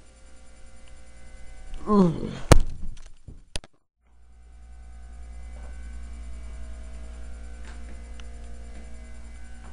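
A person's short cry, falling in pitch, about two seconds in, followed by a sharp knock, then a second sharper click. After a break of dead silence, a steady low hum with faint held tones.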